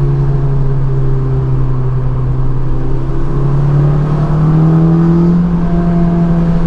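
Honda S2000's four-cylinder engine breathing through an aFe Takeda intake, heard from inside the cabin while driving at light, steady throttle. Its drone holds a steady pitch, then rises a little about four seconds in.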